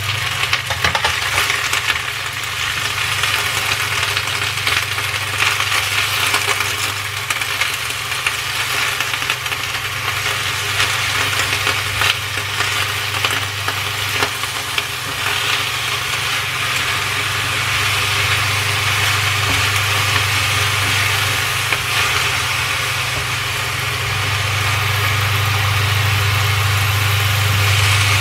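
Choi sum sizzling in hot oil in a frying pan while it is stirred and turned, with light clicks of the utensil against the pan, over a steady low hum.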